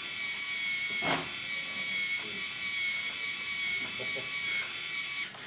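Small electric motors of a LEGO Rubik's Cube robot whining steadily as it runs, with a brief drop-out just before the end.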